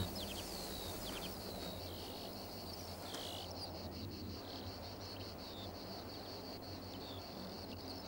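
Faint background of high bird and insect chirps and trills, busiest in the first few seconds, over a low steady hum.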